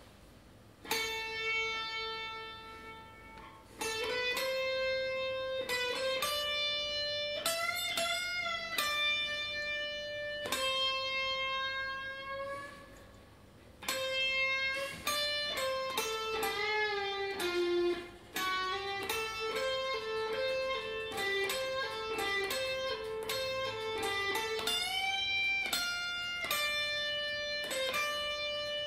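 Unaccompanied Stratocaster-style electric guitar playing a slow single-note melody of held notes, with string bends and vibrato, in phrases separated by short pauses.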